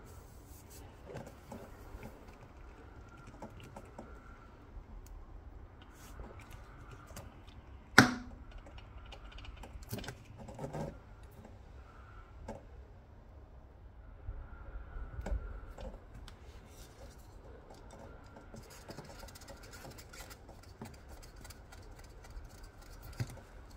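Faint rubbing and small clicks of a sticky-string tyre repair plug being worked into a puncture in the tread with an insertion tool, with one sharp click about eight seconds in. A utility knife trims the plug near the end.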